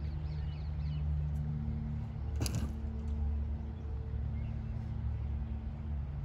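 Low steady hum of an engine or motor running, with one sharp click about halfway through.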